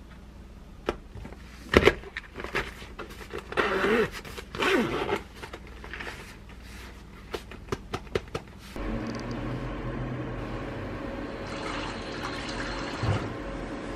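Plastic lunchbox containers clicking and knocking as they are closed and packed into a fabric cooler bag. There is a loud knock about two seconds in and a stretch of rustling around four to five seconds. About two-thirds of the way through, this gives way to a steady low hum.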